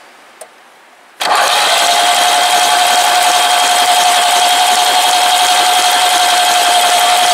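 Electric starter cranking a VAZ 'classic' inline-four engine, a steady whirring whine that starts abruptly about a second in, while a spark plug is held against the block for a spark test.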